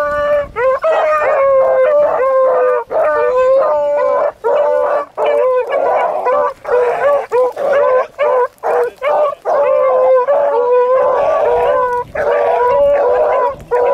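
Beagles baying on a rabbit's scent line, several voices overlapping in a near-continuous chorus with short breaks between calls.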